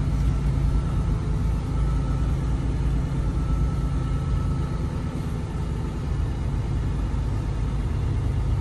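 Semi-truck diesel engine running as the truck rolls slowly, heard from inside the cab: a steady low rumble.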